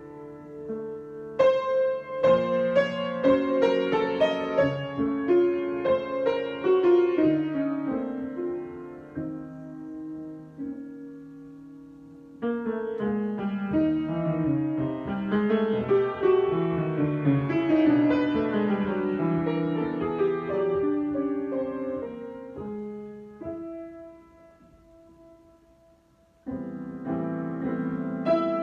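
Solo piano improvisation: phrases of notes that ring out and die away. One phrase fades about ten seconds in, a new one starts a couple of seconds later, and the playing sinks almost to nothing before picking up again near the end.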